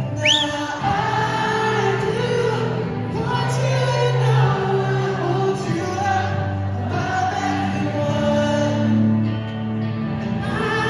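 Live band music with layered, choir-like sung vocals over sustained instruments. A short rising whistle-like squeal comes just after the start.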